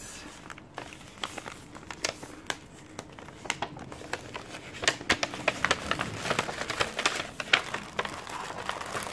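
Paper gift bag rustling and crinkling as it is opened and its contents pulled out, with irregular sharp crackles that get busier in the second half.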